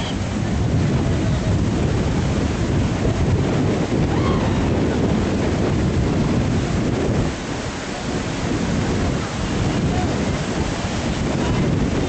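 Waves breaking and washing up a sandy beach, with strong wind buffeting the microphone into a steady low rumble.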